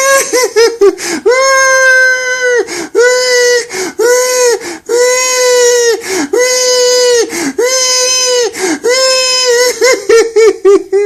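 A grown man crying like a baby in a high, wailing voice: long drawn-out wails of about a second each, with quick gasping sobs between them at the start and again near the end.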